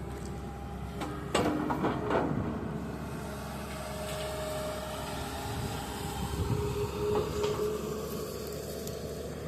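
Tata 200 excavator running while its bucket is worked, a steady engine rumble with brief pitched whines about a second in, around four seconds and again around seven seconds. No knock comes from the freshly shimmed bucket pins.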